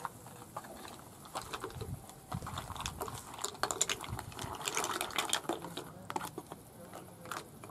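Mussel shells clattering and sliding out of a tray into a pan of boiling liquid, with a fork scraping the tray. A rapid run of clicks and rattles, busiest in the middle.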